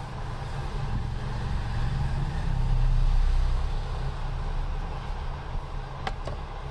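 Low rumble of a vehicle going by, swelling to its loudest about three seconds in and then fading. A light click comes near the end.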